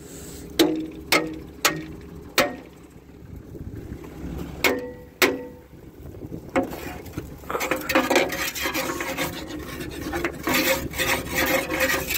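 Stuck soil being knocked and scraped off a plough's metal bodies: about seven sharp knocks that ring briefly, spread over the first six or seven seconds, then steady scraping from past halfway on. The plough is being cleaned so that its mouldboards scour clean.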